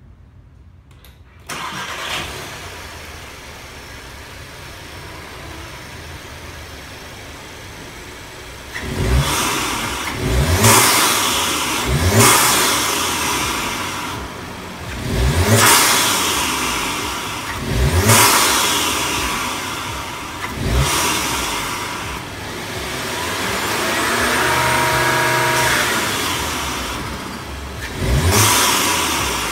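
Audi 2.0-litre TFSI turbocharged four-cylinder, breathing through a newly fitted aFe open-cone cold air intake, starts about a second and a half in and settles to a steady idle. From about nine seconds it is blipped in a series of quick revs, with one longer held rev a few seconds before the end. The intake makes a noise that is plainly louder than stock.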